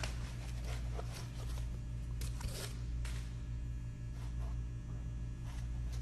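Irregular rustling and scraping handling noises, a few a second, over a steady low electrical hum.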